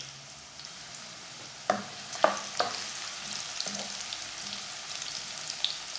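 Sliced onions sizzling in hot oil in a non-stick wok, with a steady high hiss. A spatula stirs them, knocking against the pan a few times about two seconds in.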